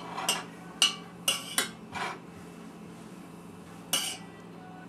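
A spoon knocking and scraping against a stainless steel saucepan while cooked rice is scooped out: several separate clinks in the first two seconds and one more near the end.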